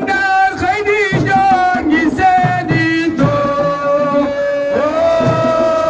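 Music: a single voice sings long held notes with a wavering, ornamented melody over a beat of drum strikes.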